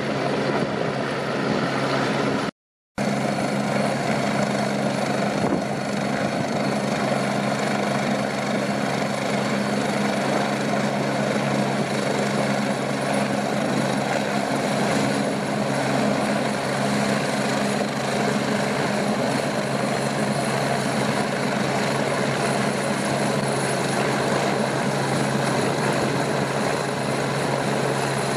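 Rescue helicopter hovering low close by: a steady, unchanging rotor and turbine noise. The sound cuts out completely for a split second about two and a half seconds in.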